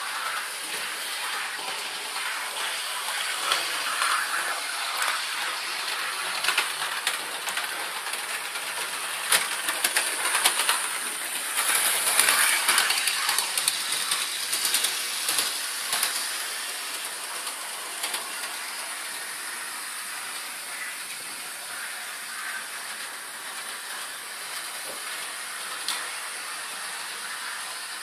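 OO gauge model trains running on the layout: a steady whirring hiss with scattered clicks of wheels over the track, louder and busier with clicks for a few seconds around the middle.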